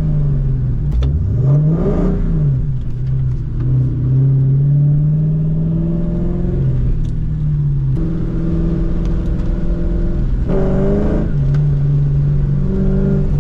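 2004 Ford Mustang GT's 4.6-litre V8, through an off-road X-pipe and Borla S-Type exhaust, pulling under throttle while driving. It runs steadily, rising and falling in pitch about two seconds in, with a sharper rev about eleven seconds in that drops away as the gear changes.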